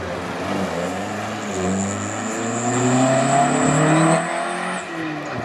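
Rally car engine accelerating hard out of a hairpin. The revs rise in pitch in steps as it changes up through the gears, and it is loudest about three to four seconds in.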